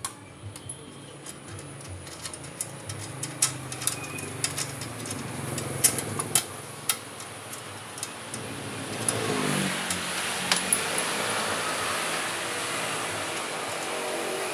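A motor vehicle engine running, its pitch falling as it passes about nine seconds in and staying louder afterwards, over scattered sharp clicks and taps.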